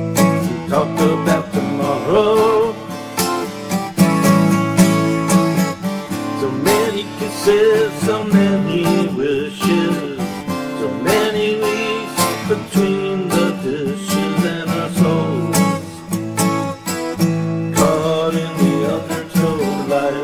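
Acoustic guitar strummed in a steady rhythm, with a man's singing voice over it.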